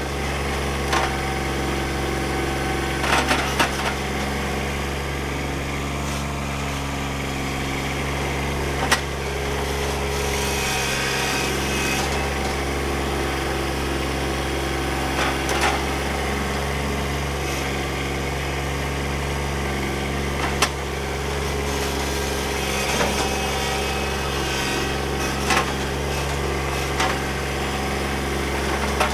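Kubota B2601 compact tractor's three-cylinder diesel running steadily under load while its front loader and stump bucket dig and dump soil. Scattered sharp knocks and clanks come from the loader and bucket working.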